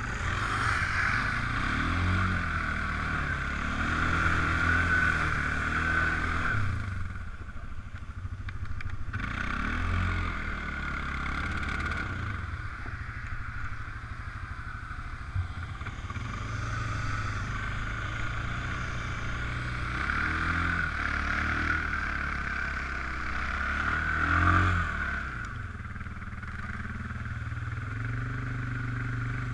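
Suzuki ATV's single-cylinder four-stroke engine heard close up from on board, revving up and easing off again and again as it rides along, with the sharpest rev about 25 seconds in.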